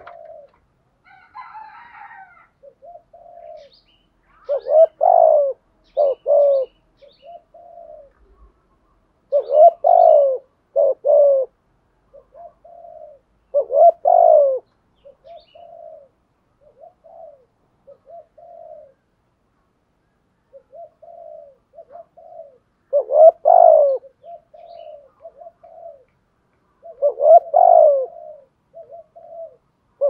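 Spotted dove singing its cooing song: loud coo phrases come every few seconds, with softer short coos between them. It is the full song of a caged decoy dove, used to draw in wild doves.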